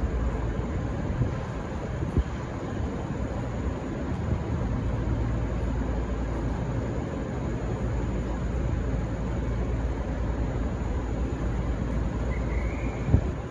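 V/Line VLocity diesel railcars running with a steady low rumble, with two sharp knocks in the first few seconds and another near the end.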